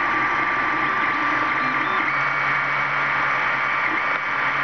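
Creality Ender 3 3D printer running a PLA print: a steady fan whir with a high, constant whine, under motor hum that changes pitch every second or so as the print head moves.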